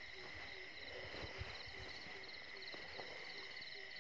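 Night chorus of insects and frogs: a steady high insect drone with a pulsing chirp above it, and a low call repeating about two to three times a second. A few soft low thumps come about a second in.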